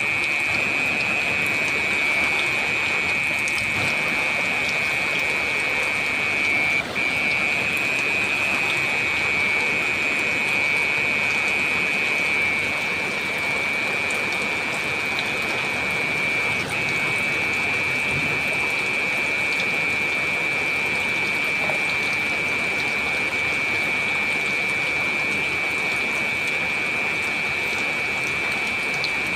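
Heavy rain falling steadily, an even rushing hiss. A steady high-pitched band of sound runs over it, breaking off for an instant twice.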